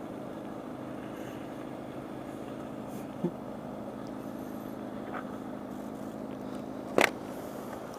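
Motorcycle engine running steadily at low revs, heard muffled through a helmet headset microphone, with one short sharp click about seven seconds in.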